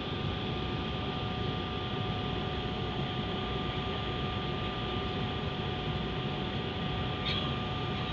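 Jet airliner cabin noise on approach: a steady rush of engines and airflow with two steady whining tones running through it. A brief high chirp sounds about seven seconds in.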